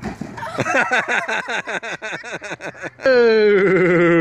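A person's voice in a quick run of short pitched sounds, about five a second. About three seconds in comes a loud, drawn-out "whoa" that slowly falls in pitch.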